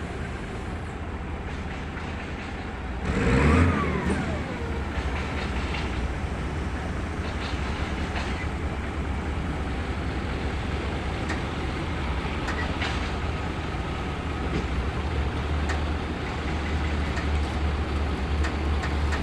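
Heavy machine engine of a mobile crane running steadily with a low hum and mechanical noise. About three seconds in there is a brief louder squeal that falls in pitch, and the running grows a little louder near the end.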